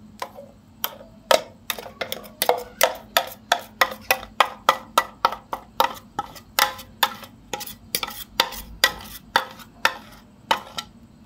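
A metal spoon scraping and knocking against the inside of a steel mixer-grinder jar, scooping out thick ground rice-and-jaggery batter: a rapid run of sharp clinks, about three a second.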